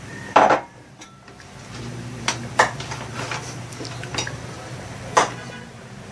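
A few sharp clicks and knocks in a kitchen, with a louder one about half a second in, over a low steady hum.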